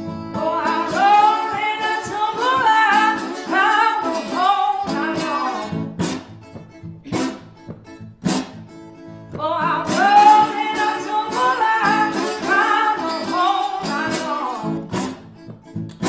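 Acoustic blues: a voice sings two long, bending phrases over acoustic guitar, with single plucked guitar strikes in the pause between the lines.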